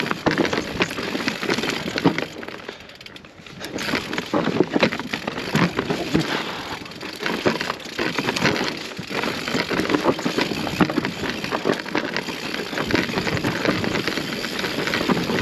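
Mountain bike tyres crunching and clattering over loose volcanic stones that roll under the wheels: a dense, irregular run of knocks and rattles that eases for a moment about three seconds in.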